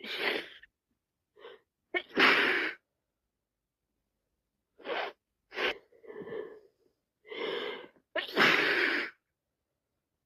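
A person with a cold sneezing repeatedly: two loud sneezes, about two seconds in and near the end, with short gasping in-breaths and smaller sneezes between them.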